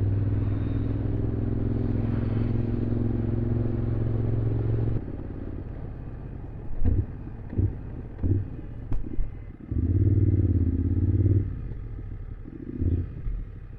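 Motorcycle engine running steadily on the move, heard through a helmet-mounted camera, until the sound cuts off abruptly about five seconds in. After that come scattered knocks and clatter and a short burst of engine sound about ten seconds in.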